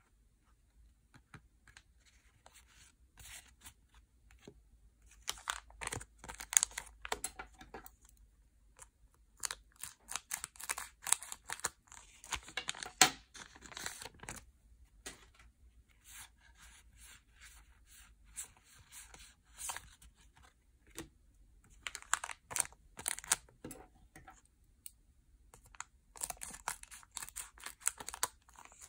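Foil Yu-Gi-Oh booster pack wrappers being torn open and crinkled in several crisp, crackling spells a few seconds long, with short pauses between them.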